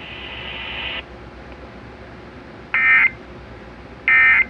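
Emergency Alert System end-of-message data bursts over broadcast radio: short, identical, harsh buzzing squawks about a second and a half apart. They mark the end of the severe thunderstorm warning. A steady hiss comes first, for about a second.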